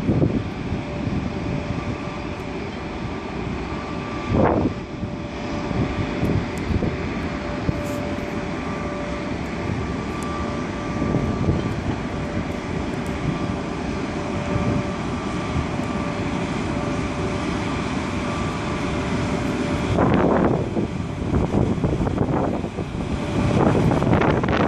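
VR Sr1 electric locomotive hauling a freight train out of the station at low speed, running with a steady electrical whine over the rumble of the train. Louder gusts of wind noise on the microphone come about four seconds in, at about twenty seconds and near the end.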